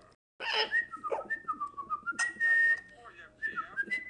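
Parrot whistling a string of short notes that slide up and down, with one longer held note about two seconds in; it opens with a brief raspy call.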